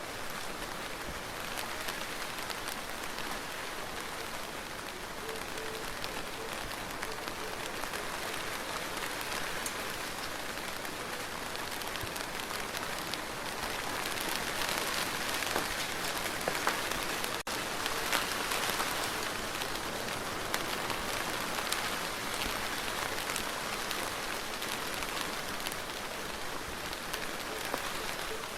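Steady rain falling: an even hiss with scattered drop ticks, growing slightly louder for a few seconds midway.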